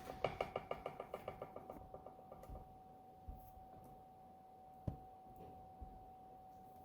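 Packaging being handled: a quick run of light, slightly ringing clicks that fade out over about two seconds, then a single sharper knock and a softer one. A faint steady high hum runs underneath.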